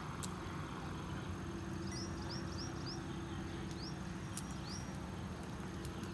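A small bird chirping: a quick run of about five short high chirps about two seconds in, then two more a little later, over a steady low outdoor hum.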